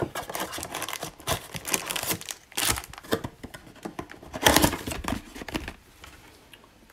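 Foil-wrapped trading card packs crinkling and rustling as they are shaken out of a cardboard retail blaster box onto a table, with tearing and tapping sounds. The handling dies down near the end.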